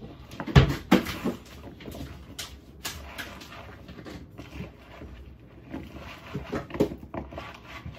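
Hands tossing and rubbing raw potato wedges in a plastic mixing bowl: irregular knocks and clatter, with one loud thump about half a second in and a run of smaller knocks near the end.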